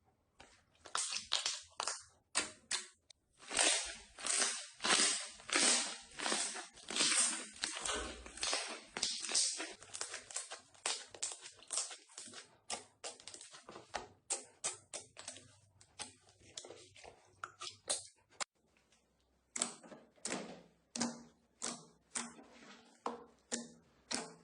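Slime being squeezed and worked by hand: a long run of short, sharp squishes and crackly pops, about two or three a second, more crowded in the first half and spaced out later.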